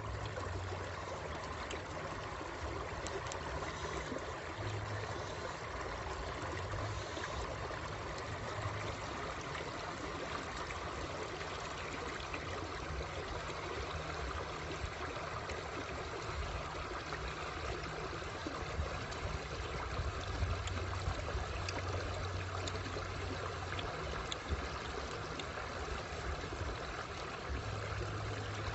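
Shallow stream running over rocks: a steady burble and trickle of flowing water.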